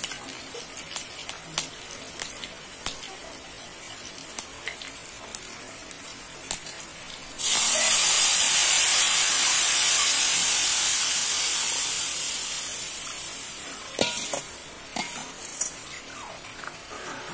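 Hot oil tempering in a kadhai crackling and popping softly. About seven seconds in, horse gram flour slurry poured into the hot oil sets off a sudden loud sizzle that fades away over several seconds, followed by a few clicks of the steel ladle against the pan.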